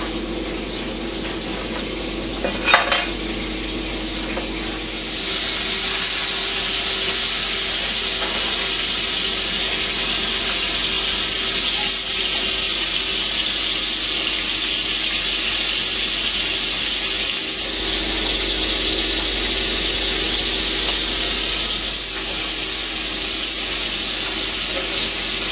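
Food sizzling in a hot frying pan, starting suddenly about five seconds in and going on steadily, after a brief clatter near the three-second mark; a low steady hum underneath.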